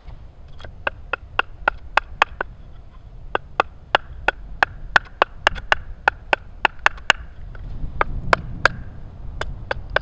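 Batoning: a plain wooden stick tapping on the spine of a fixed-blade knife, driving the blade down through a wood billet to trim material off to a stop cut. A steady run of light, sharp knocks, about four a second, with two short pauses.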